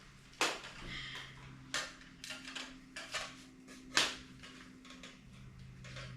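A handful of sharp clicks and knocks of hard objects being handled and set down, the loudest about half a second and four seconds in, over a low steady hum.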